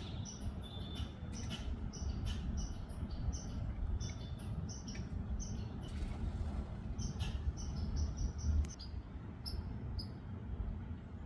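Squirrel scolding with rapid, short, high-pitched chattering calls a few times a second, over a steady low rumble; the calls thin out to a few near the end. It is the angry chatter of a squirrel upset at other squirrels taking its nuts.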